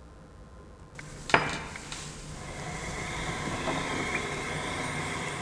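A coin clicks sharply against a tabletop just over a second in, followed by a hissing, faintly ringing rattle that slowly grows louder.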